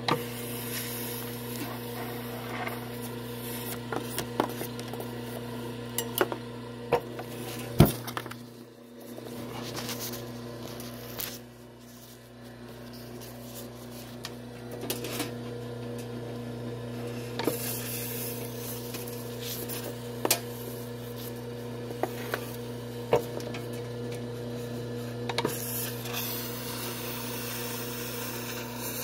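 Yescom electric wire stripper running with a steady motor hum, with scattered clicks and knocks as lengths of insulated copper wire are fed through its blade and stripped. The loudest knock comes about eight seconds in.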